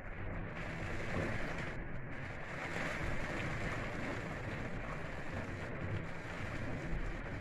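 Heavy storm rain and wind: a steady rushing noise that swells just after the start and then holds.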